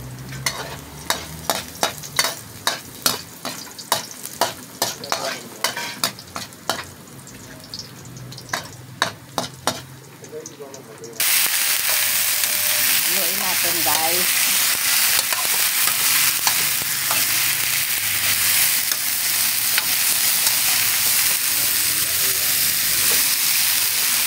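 Metal spatula clacking and scraping against an aluminium wok while stir-frying vegetables, about two strokes a second. About eleven seconds in, a loud steady sizzle of the vegetables frying takes over suddenly.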